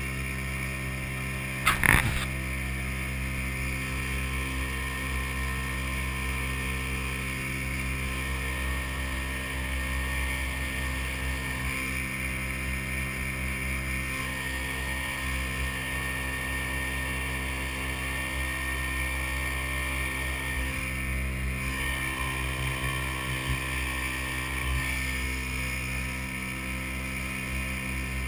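Small boat's outboard motor running steadily as the boat cruises, heard from on board. A single brief knock about two seconds in.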